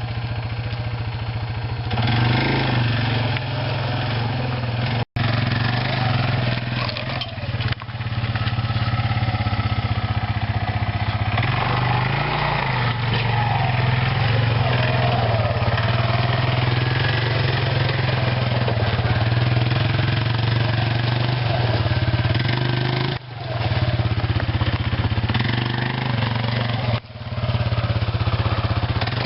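ATV (quad) engine running steadily on the move, with a drop in sound about five seconds in and two short dips later on.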